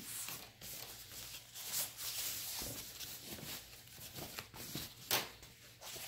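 Rustling and crinkling of a thin LDPE plastic protective bag as a speaker is handled and slid out of it, in uneven strokes, with one sharp click a little after five seconds in.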